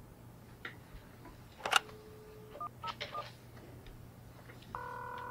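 Telephone call being placed: a handset clicks up, a short low tone sounds, then a few quick keypad beeps as a number is dialled. Near the end a steady electronic tone comes on as the line rings.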